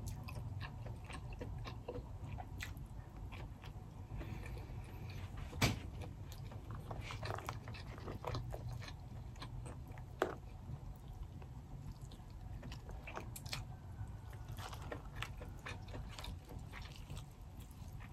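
Eating king crab and crawfish: soft chewing and the crackle of shell being pulled apart by hand, in scattered small clicks, with two sharper cracks about six and ten seconds in, over a low steady hum.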